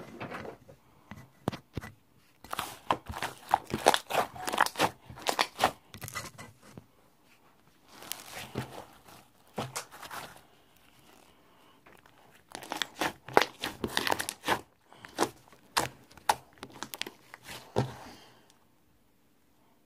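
Irregular bursts of crinkling and crunching, with short quiet gaps between them.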